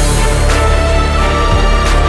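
Background music: a full, steady instrumental track with a heavy low beat, and a crash of cymbal near the end.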